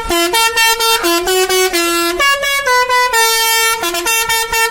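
Indonesian 'telolet' bus horn, a Basuri multi-tone air horn, playing a quick tune of short notes stepping up and down in pitch, with a few longer held notes.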